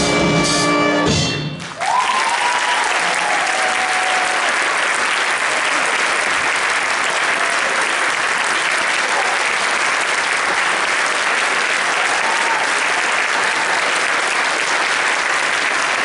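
A jazz big band's horns hold a final chord that cuts off about a second and a half in, followed by steady audience applause.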